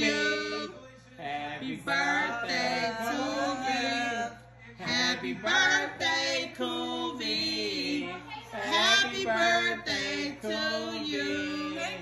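Several people singing together, with women's voices loudest, in phrases broken by short pauses.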